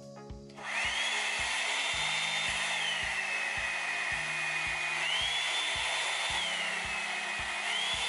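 Revlon One-Step hair dryer brush switched on about half a second in: a steady rush of air with a motor whine that steps up and down in pitch, rising three times and falling twice, as the switch is slid between its speed settings.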